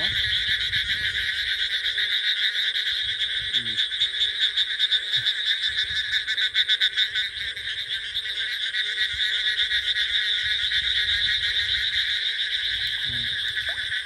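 Dense breeding chorus of many frogs calling at once: a continuous, rapidly pulsing high trill.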